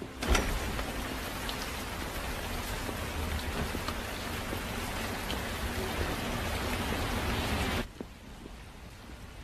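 A sharp knock right at the start, then steady rain falling, which cuts off suddenly near the end.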